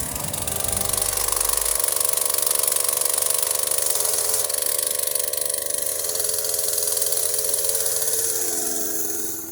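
Chainsaw running steadily at high revs, cutting down a wooden gate post; the engine note drops and fades near the end.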